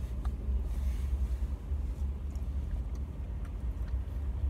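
Steady low rumble inside a parked car's cabin, with a few faint clicks.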